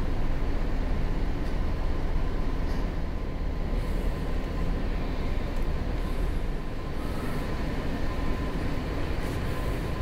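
Steady low rumble of an oil tanker's machinery heard on the ship's bridge, unchanging throughout, with a faint steady high tone running under it.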